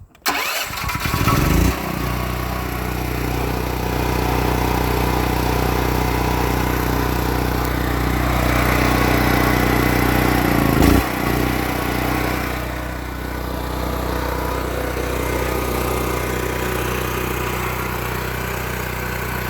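Predator portable generator's gasoline engine cold-starting on its electric starter with the choke on after months of storage. It cranks and catches within about two seconds, then settles into steady running, with a brief dip in engine speed about eleven seconds in.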